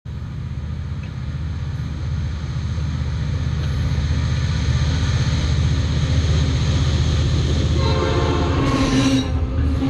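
Norfolk Southern diesel freight locomotive approaching along the track, its deep rumble growing steadily louder as it nears, with a horn sounding near the end.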